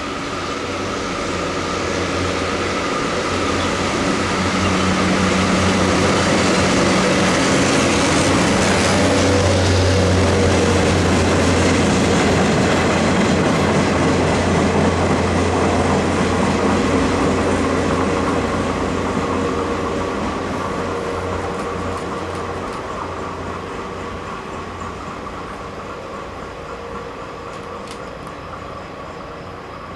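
A train passing by: a steady low hum with rail noise that builds over the first ten seconds or so, holds, then fades away.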